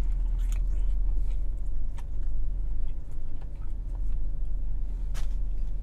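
A man biting into and chewing a fried chicken sandwich, with soft mouth noises and a few small clicks, over a steady low hum in a car cabin.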